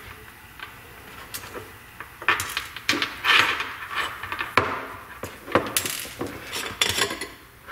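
Small metal parts and the plastic body of a security camera clicking and clinking as they are handled, set down on a hard workbench and worked apart: a run of separate sharp clicks and knocks with some scraping.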